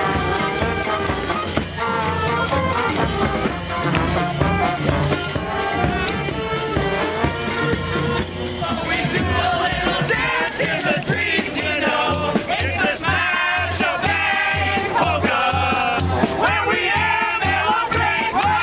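Street brass band playing a polka: saxophones, clarinet, trombones and sousaphone over a steady bass-drum beat. About halfway through, voices join in singing over the band.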